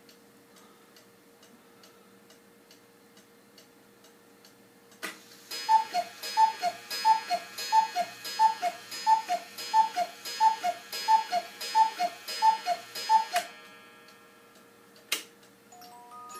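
1969 cuckoo clock ticking, then striking twelve: after a click its cuckoo calls twelve times, each a high note falling to a lower one, about one and a half calls a second. Near the end another click, and the music box starts to play.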